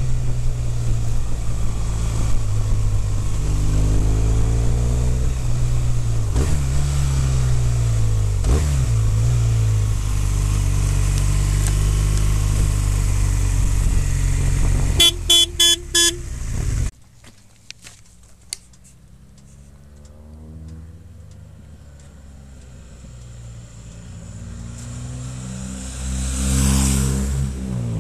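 BMW motorcycle engine running at road speed under heavy wind noise, its note rising and falling with throttle and gear changes. About fifteen seconds in come four short horn toots. The sound then cuts to a quieter roadside, where another motorcycle approaches and passes near the end.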